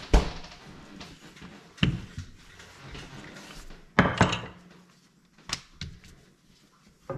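Rolling pin working pie dough on a counter, with a soft rolling rumble and a thunk every second and a half or so.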